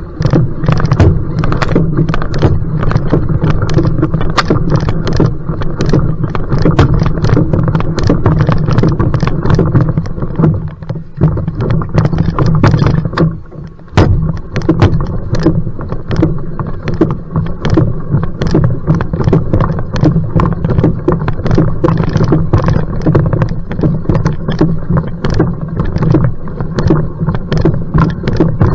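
Paddle strokes splashing in quick, repeated succession as a va'a outrigger canoe is sprinted, under heavy wind rumble on the microphone.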